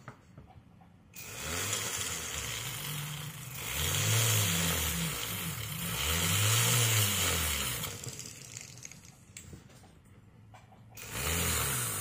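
Hanging flex-shaft rotary motor spinning a coarse yellow 3M radial bristle disc against a metal jewellery piece, its pitch rising and falling as the speed changes. It starts about a second in, stops near eight seconds and starts again near the end.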